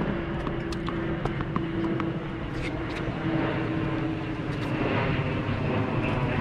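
A steady mechanical drone with a held hum through the first five seconds or so, and a few faint light clicks.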